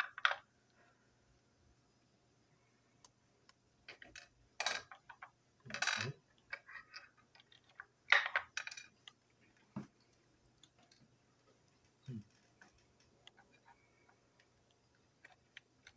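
Small plastic parts of a TrackMaster toy train wagon clicking and clattering as they are handled and pulled apart, with a few louder scraping rattles near the middle.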